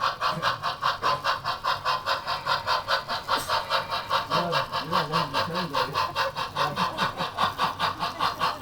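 Model train running on the layout, with a steady rhythmic chuffing of about five beats a second, like a steam locomotive's exhaust beat.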